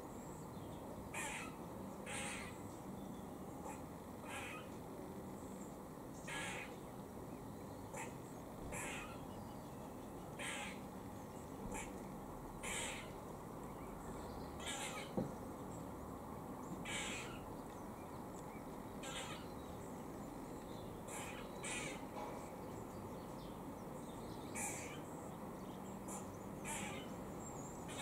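Eastern grey squirrel giving short harsh alarm calls, one every second or two, repeated throughout. A single sharp click about halfway through.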